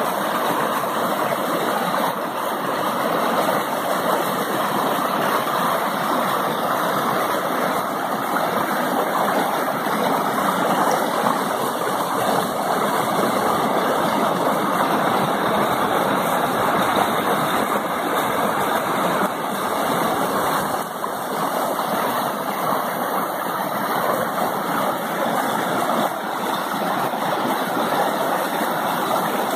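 Mountain stream rushing over a rocky cascade: a steady, even rush of white water.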